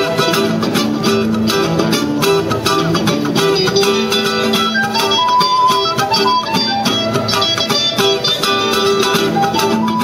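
Music led by plucked strings, guitar-like, playing continuously; a higher melody line comes in about halfway through.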